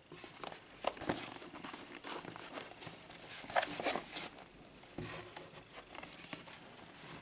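A cardboard toy box being handled and turned over in the hands, with irregular rubbing, scraping and light knocks of cardboard against cardboard, loudest about a second in and again around the middle.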